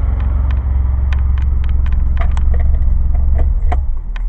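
DeLorean's PRV V6 engine, fitted with a carburetor conversion, idling steadily in a low, pulsing rumble with scattered light clicks over it. The sound changes and starts to fall away near the end.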